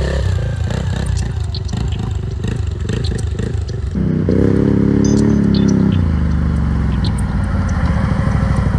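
Quad bike (ATV) engine running under way. It revs up about four seconds in and eases off again about two seconds later.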